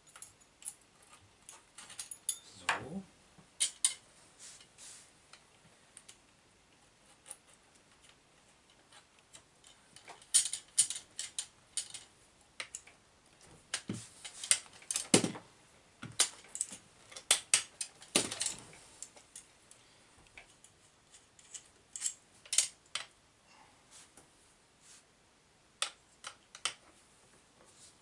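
Irregular metallic clicks and clinks of small metal parts, screws and hand tools being handled while a large-scale RC monster truck's aluminium chassis and axle are assembled, with a few heavier knocks of parts set down against the frame. The handling is busiest about a third and two thirds of the way through.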